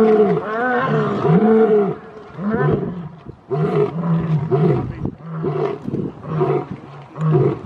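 Male lion roaring: two long roars that rise and fall in pitch, then a series of shorter grunting roars about one or two a second. These are the short grunts that close a lion's roaring bout.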